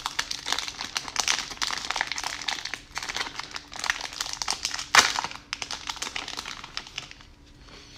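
Plastic wrapper of a Topps baseball card fat pack crinkling as it is handled and opened by hand. There is a sharper crackle about five seconds in, and it goes quieter near the end.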